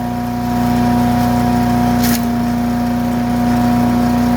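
Harbor Freight wood chipper's gas engine running steadily at a constant pitch, growing louder about half a second in as a thick branch near its 3-inch limit goes into the chute, with one sharp crack about two seconds in as the branch is chewed slowly.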